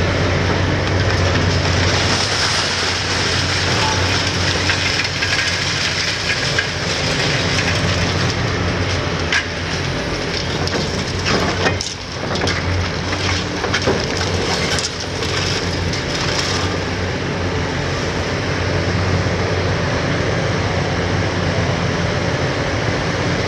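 Hitachi 870 LCR demolition excavator's six-cylinder Isuzu diesel running steadily with a deep hum. From about 9 to 17 seconds in come a series of sharp cracks and knocks as concrete breaks.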